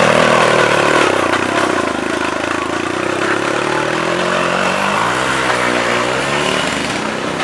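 Engine of a factory-built two-wheel tractor (rotary tiller) pulling a rider on a sulky, running hard at racing speed. Its pitch wavers up and down a couple of seconds before the end.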